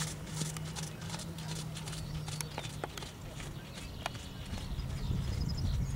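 A horse's hooves beating on the sand footing of a dressage arena at a working trot, a run of soft thuds and ticks over a steady low hum. A low rumble of wind on the microphone builds near the end.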